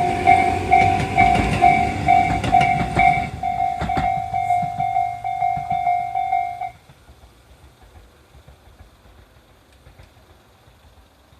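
Japanese level crossing warning bell of the Tobu Tojo Line type, an electronic two-tone ding repeating about two or three times a second, while a train passes with its wheels clacking over the rail joints. The train noise fades and the bell stops abruptly about two-thirds of the way in, leaving only faint background.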